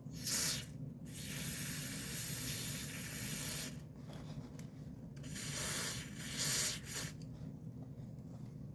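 Aerosol electrical contact cleaner sprayed in hissing bursts: a loud short burst, a longer steady spray running on to almost four seconds in, then another burst of about two seconds near the six-second mark. It is being sprayed into a power switch whose contacts are suspected of causing a buzz.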